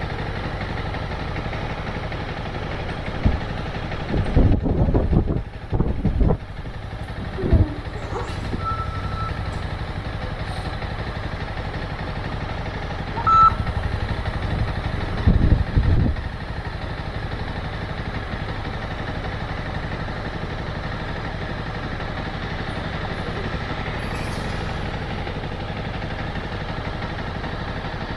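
Motorcycle engine running steadily at low revs, with two short stretches of louder, uneven low rumbling a few seconds in and again about halfway. A couple of brief high beeps sound between them.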